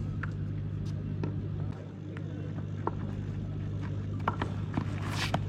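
A steady low hum, with scattered sharp clicks and a few voices near the end.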